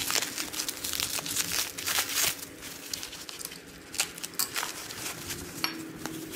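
Plastic bubble wrap crinkling and tearing as it is pulled and cut open by hand, in quick irregular crackles, densest in the first couple of seconds, with a sharp click about four seconds in.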